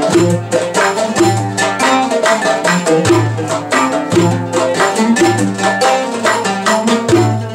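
Oud playing a melody in maqam bayati, the istihlal opening of an Egyptian wasla, accompanied by a riq's jingling strokes and a metal darbuka. A deep darbuka stroke falls about once a second under the plucked notes.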